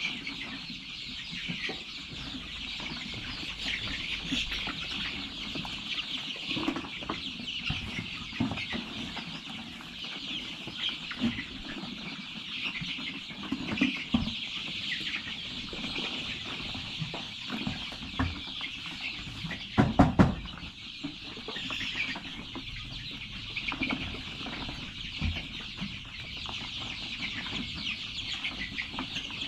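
A flock of young chickens cheeping steadily and clucking while they feed. About two-thirds of the way through comes a brief cluster of loud knocks.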